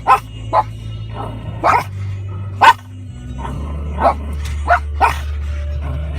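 A dog barking in short, sharp barks, about eight spread over a few seconds, over a steady low hum.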